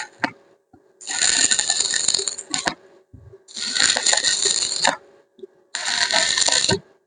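Harsh, hissing metalwork noise on steel in four bursts of about a second and a half each, starting and stopping abruptly, with short pauses between them.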